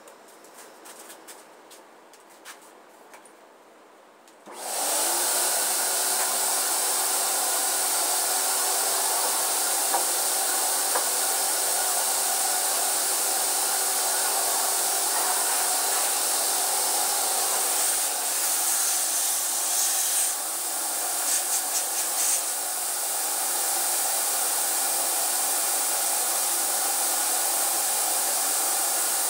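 Faint rustling, then about four seconds in an HVLP paint sprayer starts up with a rising whine and settles into a loud, steady rush of hissing air. The hiss dips briefly a few times past the middle.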